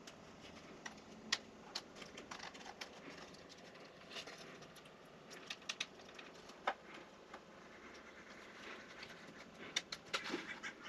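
Scattered light clicks, taps and faint rustling of plastic trim and mounting parts being handled and pressed into place by hand, with one sharper click a little past the middle.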